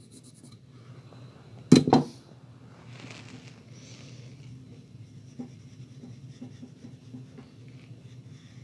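Pencil scratching on paper in short strokes and small taps, marking and joining dots along a drawn curve. About two seconds in, a sharp double knock.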